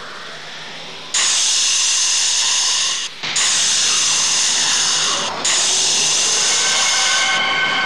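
A loud, steady hiss that starts suddenly about a second in and breaks off briefly twice, with faint steady tones running through it.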